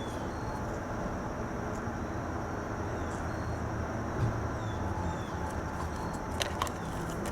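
Steady low background noise with a few faint light clicks about six and a half seconds in.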